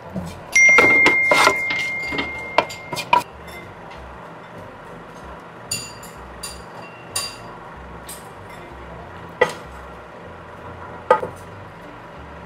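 Kitchen utensils and cookware clinking: a burst of sharp metal-on-pan clinks with a steady high tone lasting about two and a half seconds near the start, then single clinks every second or two.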